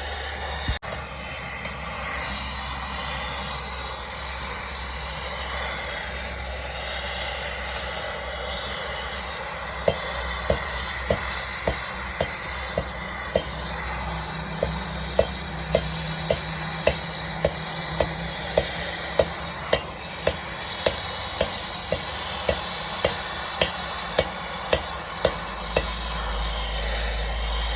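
Steady hissing machine noise with a sharp regular click about twice a second, the clicks starting about ten seconds in.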